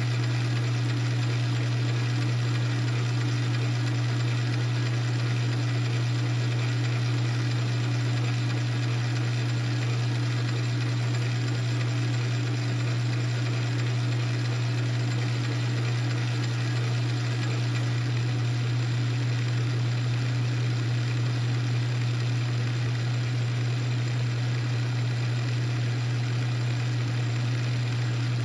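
South Bend 9 lathe running steadily, spinning a 3/16-inch end mill while the milling attachment feeds the part to cut a keyway. It makes a constant low hum with a steady higher tone above it, unchanging throughout.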